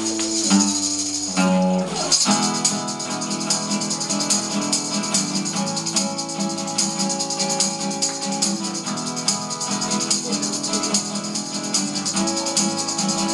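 Instrumental passage of live acoustic music: an acoustic guitar is played in a steady rhythm while a hand-held jingle tambourine is shaken. The tambourine rattle comes in densely about two seconds in.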